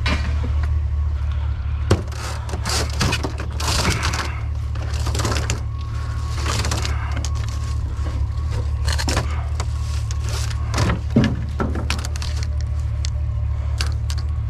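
Rummaging through trash: irregular scraping, rustling and clattering as junk is shifted and dragged, with a few sharper knocks, over a steady low hum.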